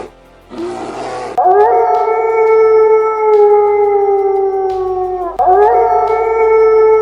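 A canid howling: two long, steady, slightly falling howls, the first about four seconds long and the second starting about five and a half seconds in. Just before the first howl there is a short rough, breathy burst.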